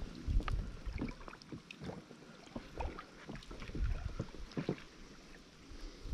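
Water sloshing and splashing in irregular bursts, with small knocks and clicks, as someone moves through shallow water.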